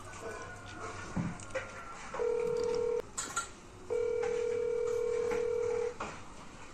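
Ringback tone of an outgoing call heard through a smartphone's loudspeaker: a steady beep of under a second about two seconds in, then a longer one of about two seconds from about four seconds in, while the call rings unanswered.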